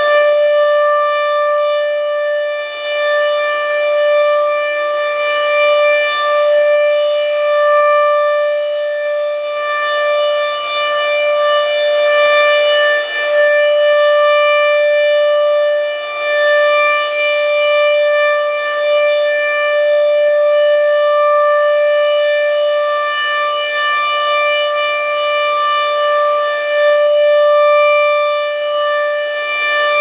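Super Sirex outdoor warning siren sounding a steady, unwavering tone with strong overtones. Its two horns rotate, so the sound swells and fades every few seconds.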